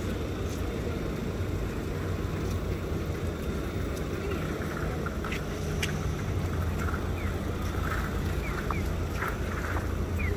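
City street ambience: a steady low rumble of traffic, with faint short chirps and light clicks in the second half.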